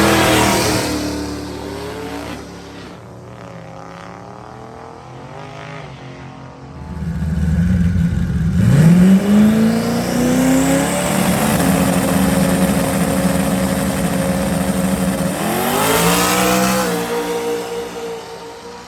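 LSX V8 truck engine revving: it falls back from a high rev at the start, climbs steadily about seven seconds in, holds a high rev for about five seconds, then drops back near the end.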